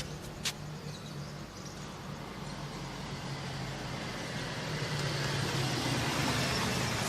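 Road traffic: a vehicle engine idles with a steady low hum while passing traffic grows louder from about five seconds in. A single sharp click sounds about half a second in.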